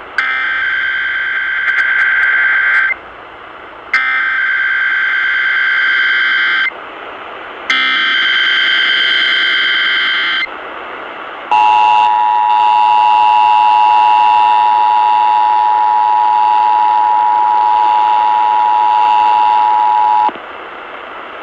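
Emergency Alert System test tones over AM radio. First come three bursts of SAME header data, a harsh digital warble about three seconds each with a second's gap between them, then the two-tone EAS attention signal held steady for about nine seconds, with static hiss throughout.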